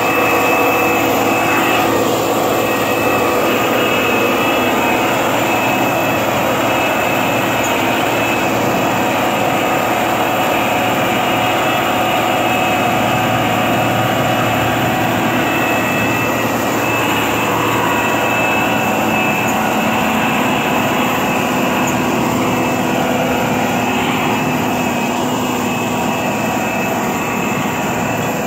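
Speicher 9000 drainage-tile trencher working under load, its engine and digging mechanism making a loud, steady mechanical drone with several held tones, as it trenches and lays perforated plastic drain tile.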